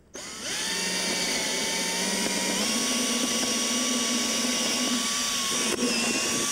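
Cordless drill spinning up and boring a hole through a wooden board with a large twist bit: a steady motor whine that rises to speed in the first half second, with a brief click about six seconds in.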